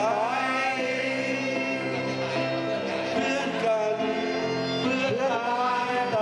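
A group of people singing a Thai song together into microphones, holding long wavering notes over an electronic keyboard accompaniment.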